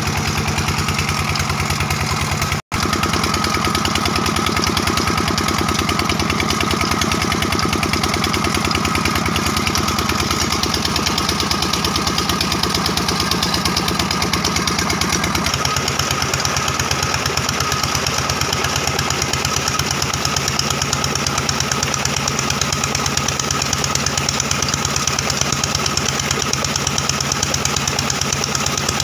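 Petter-type single-cylinder diesel engine running steadily under load, driving a village tubewell pump, with a rapid, even firing beat. Its note shifts slightly twice.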